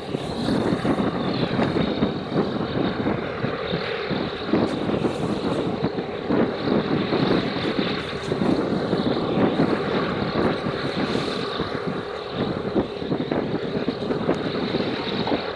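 Steady, rough rumbling noise: wind buffeting the microphone over a low engine drone from the ship and tug under way.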